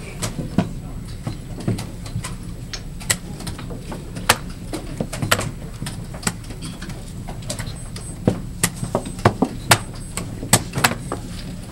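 Plastic chess pieces clacking down on a vinyl board and chess clock buttons being pressed, sharp separate clicks in a fast blitz exchange that comes quicker from about eight seconds in. There is a steady low hum of the playing hall underneath.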